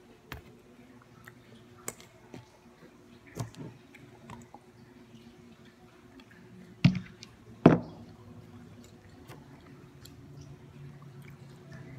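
Eating at a table: plastic fork and spoon clicking and scraping on a paper plate, with chewing. Two much louder knocks come about two-thirds of the way in.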